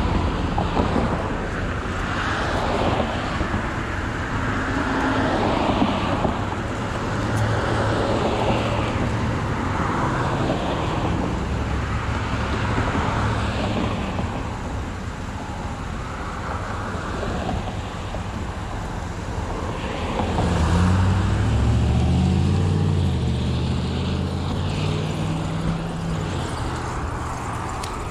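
Road traffic: motor vehicles going by, with a steady rush of tyre and wind noise. About twenty seconds in, an engine rises in pitch in steps as a vehicle accelerates, and it fades out a few seconds later.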